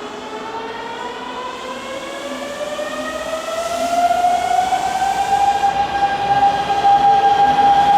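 Hanshin 9000 series electric train accelerating, its traction motors and inverter giving a whine that rises in pitch for about five seconds, then holds a steady tone as the sound grows louder.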